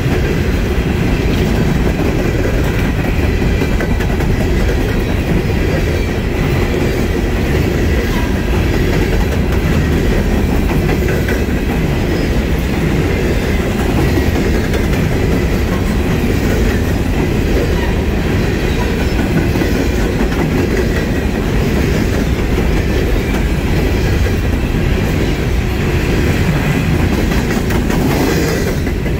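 Coal cars of a long freight train rolling past, with steady, loud wheel-on-rail noise and clickety-clack over the rail joints. A faint steady high tone from the wheels runs through it.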